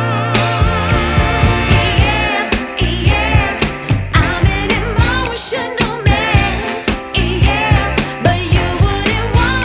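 Background song with a sung vocal over a steady beat.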